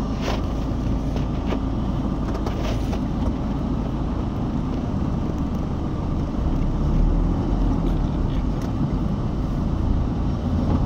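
Steady low rumble of a car's engine and road noise heard from inside the cabin in slow traffic, with a few light clicks near the start. It grows louder about two-thirds of the way through as the car moves off.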